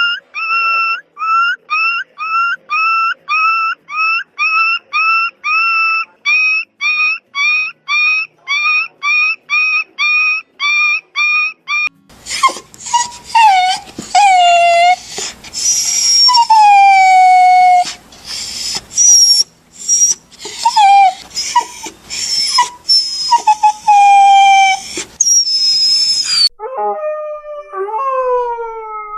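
Dog crying: first a rapid, even series of short whimpering yelps, a little over two a second. About twelve seconds in it changes to irregular high-pitched whines and yelps that slide down in pitch, and near the end to a few longer falling whines.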